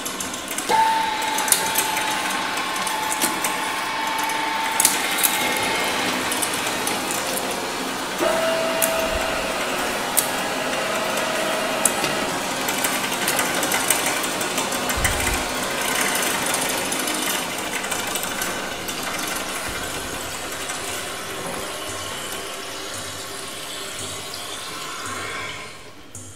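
Dense mechanical clatter with scattered sharp clicks, with a steady whistling tone held for about five seconds near the start and a lower one for about four seconds a little later. It slowly grows quieter and drops away abruptly just before the end.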